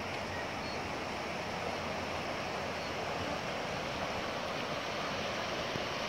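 Steady rushing of a mountain stream running over a rocky bed.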